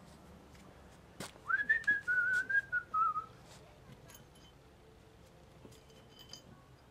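A person whistling a few notes for about two seconds, the pitch wavering and stepping down at the end, right after a sharp click. A few faint clicks follow.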